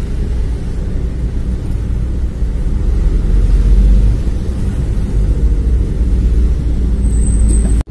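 Steady low rumble of road traffic from a moving vehicle in town, following a dump truck and motorbikes. A brief high-pitched tone sounds near the end, then the sound cuts off suddenly.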